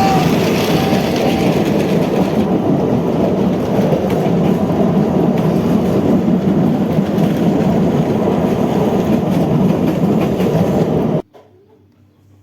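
Train running along the rails: a steady, heavy rumble of a rail-noise sound effect with two brief high tones in the first second and a half. It cuts off abruptly about eleven seconds in.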